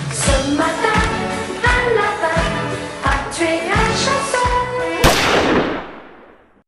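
Background music with a steady drum beat, ending on one loud cymbal crash about five seconds in that rings and fades away to nothing.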